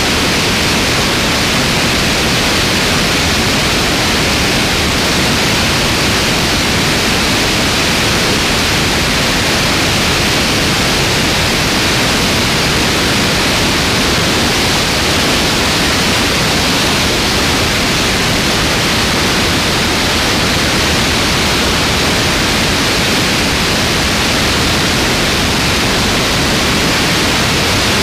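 Slipstream wind rushing steadily over a wing-mounted camera's microphone in flight: a loud, even hiss that does not change.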